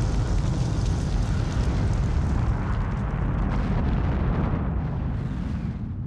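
Deep, steady rumble of a volcanic eruption's billowing ash cloud, fading out near the end.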